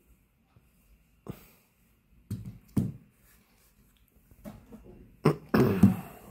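Handling noise from a tablet and a phone being moved and set down on a cloth desk mat: a few short knocks and rubs, with the loudest bumps and scraping about five to six seconds in.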